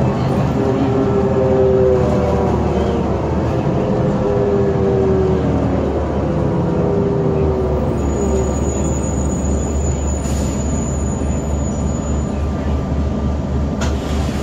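Inside a New Flyer D40LF bus, the Detroit Diesel Series 50 engine and Allison transmission whine down in pitch as the bus slows. About halfway through this gives way to a low, evenly pulsing diesel drone as the bus draws up to the curb. A faint high squeal comes in the middle, and a short hiss near the end.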